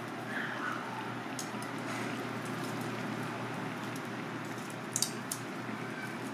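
Turban shells sizzling and bubbling in their own juices on a gas grill, a steady crackling hiss. A few sharp clicks about five seconds in.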